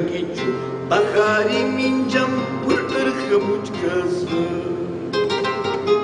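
Solo nylon-string classical guitar playing a fingerpicked melody over sustained bass notes.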